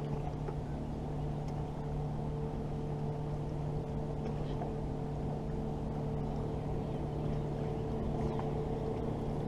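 Electric trolling motor running steadily, a low even hum with a couple of steady tones in it, as the bass boat creeps along the bank.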